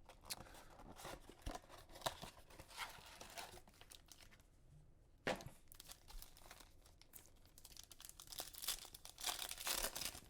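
Foil wrapper of a Panini Optic basketball card pack being torn open and crinkled: scattered crackles, a sharp snap about five seconds in, and denser crinkling near the end.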